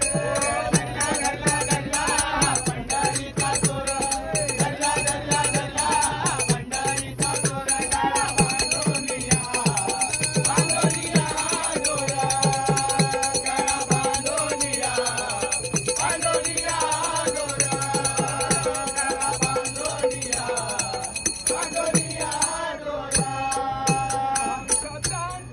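A group of men singing a Marathi devotional bhajan together, accompanied by tabla and small brass hand cymbals (taal) clashed in a steady rhythm. The cymbals stop briefly near the end.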